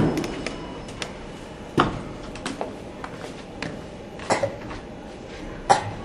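Elevator doors sliding open, with a few light knocks and clunks over a steady background hum.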